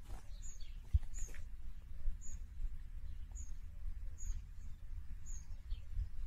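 A bird repeating a short, high chirp about once a second, over a steady low rumble.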